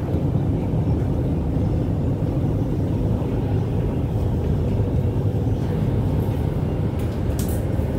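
Interior running noise of a Shenzhen Metro Line 4 Puzhen A-type electric train pulling out along the station platform: a steady low rumble, with a few faint ticks near the end.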